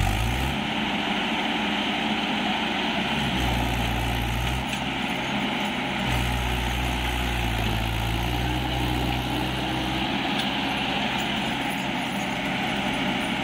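Swaraj tractor's diesel engine running hard under load as it drags a loaded sand trolley up a soft slope. Its low note changes several times as the revs rise and fall.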